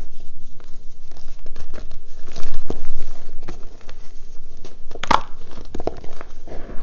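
Close-miked hand crushing and crumbling chunks of reformed gym chalk in a plastic tub: dry, gritty crunching with many small crackles and one sharper crack about five seconds in.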